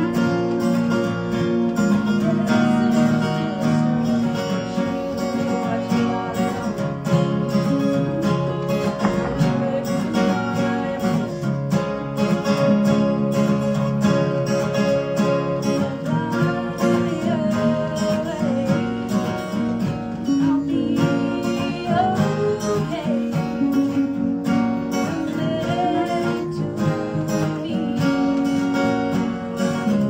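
Live country band: a strummed acoustic guitar with a second guitar, and a woman singing lead.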